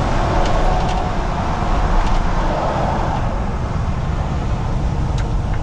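Steady engine drone and road noise heard from inside a semi-truck's cab at highway speed, with a slight swell of noise about two seconds in.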